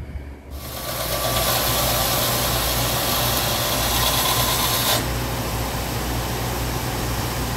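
Bench belt sander grinding a metal part, throwing sparks: a loud, harsh rasp from about half a second in until about five seconds in. After that the part is lifted off and the sander's motor and belt run on with a lighter hiss and a steady hum.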